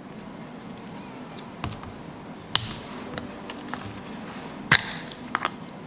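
Slime being squeezed and worked by hand, giving scattered small crisp clicks and pops, with a sharper pop about halfway through and another near the end.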